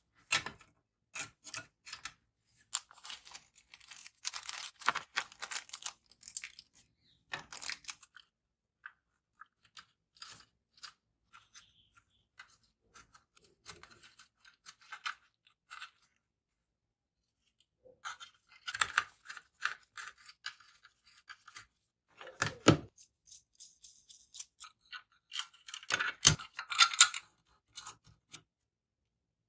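Hands handling small parts and packaging: scattered clicks, taps and crinkling in short bursts with pauses between them, and two heavier knocks in the second half.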